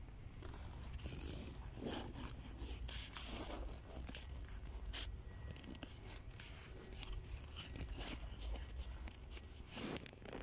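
Handling noise from a handheld camera being carried along: a steady low rumble with irregular rustles, scrapes and small clicks.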